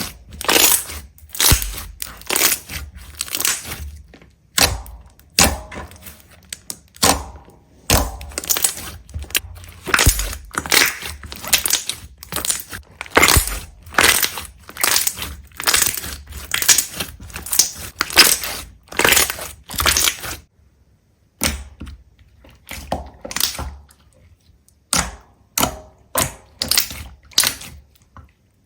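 Repeated sharp crunches and cracks, like something brittle being crushed or broken, coming about two a second. They stop briefly a little over two-thirds of the way through and come back quieter and sparser.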